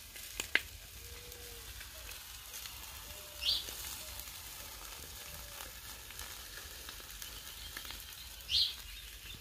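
Butterflied matrinxã fish sizzling steadily on a charcoal grill, with a couple of pops near the start. Two short high chirps cut in, about five seconds apart.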